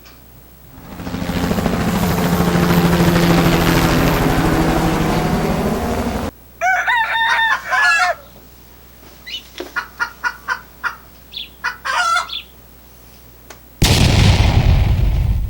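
A sequence of canned sound effects played from an iPod Touch sound-effects app. First about five seconds of loud, dense noise that cuts off abruptly. Then a couple of seconds of rising-and-falling animal-like calls, a string of short calls, and near the end a sudden loud burst that fades away.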